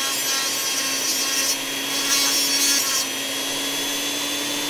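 Foredom flexible-shaft rotary tool with a small cutoff wheel grinding oil-relief notches into the thrust face of a steel Muncie 4-speed transmission gear. A steady motor whine runs under a hissing grind, which turns harsher for a second or so midway as the wheel bites.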